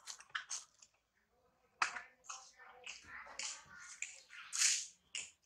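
A macaque biting and chewing a piece of fruit: scattered crunches and clicks with brief rustling noises.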